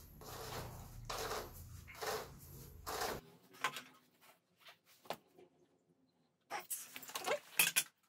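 Air chuck on the valve of a freshly fitted scooter tire hissing in about three short bursts while the tire is inflated to seat its bead, over a low steady hum that cuts off about three seconds in. After that come scattered light clicks and knocks of the wheel and tools being handled.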